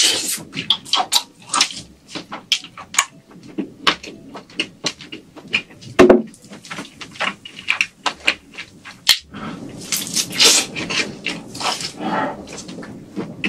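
Close-miked chewing and wet mouth sounds of a person eating large grilled tiger prawns, a rapid run of smacks and clicks. One heavier knock comes about six seconds in, as a gloved hand reaches into the foil-lined pan.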